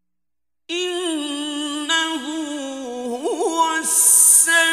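Male Quran reciter chanting in the melodic mujawwad tajweed style: after a short silence a single voice enters on long held notes, with a quick wavering ornament in the middle and a drawn-out hissing consonant about four seconds in.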